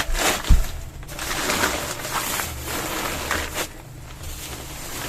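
Packaging rustling and crinkling in irregular bursts while a floor chair and its pillow are unpacked, with one heavy thump about half a second in.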